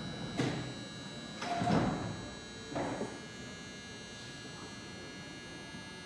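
Commuter train car interior: a steady electrical hum, broken by three dull knocks about half a second, a second and a half, and three seconds in, the middle one the loudest.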